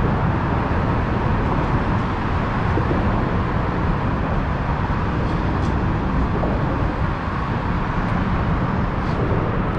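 Steady, loud background noise, strongest in the low range, with no distinct events.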